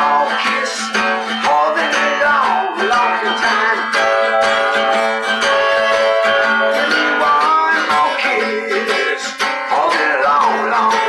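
Blues harmonica played with bent, wavering notes over a strummed acoustic guitar in a slow blues arrangement.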